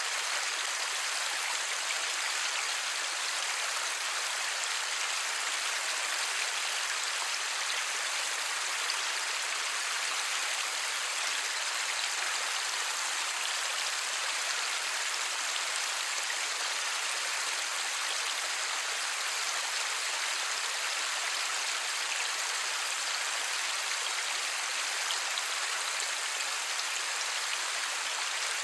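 Light rain falling steadily, an even hiss of many fine drops with no thunder.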